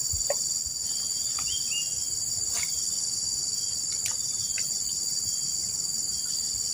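A dense chorus of insects making a steady, high-pitched, finely pulsing trill, with a few faint clicks scattered through it.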